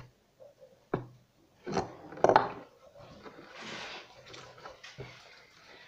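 Kitchen utensils and containers knocking and clinking on a table. A sharp knock comes about a second in and a louder clatter around two seconds, followed by a short rustling and a few lighter taps.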